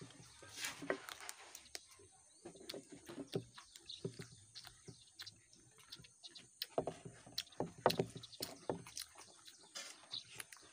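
Eating sounds of a boy eating rice by hand from an enamel plate: chewing and mouth smacks with scattered small clicks.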